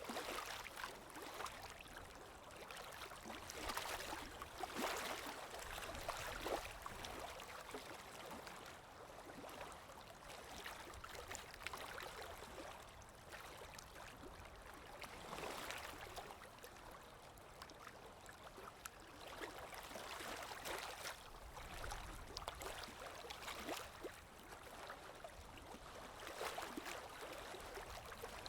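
Water lapping in soft swells every few seconds, over a low rush of wind.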